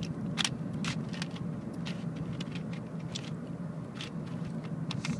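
Cheap plastic Rubik's-style puzzle cube being twisted by hand, its layers clicking irregularly about once or twice a second, over a steady low hum inside a car.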